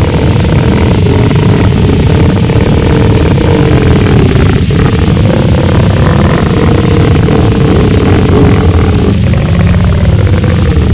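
Gorenoise: a loud, unbroken wall of heavily distorted noise with a deep rumble underneath and a steady drone held at one pitch.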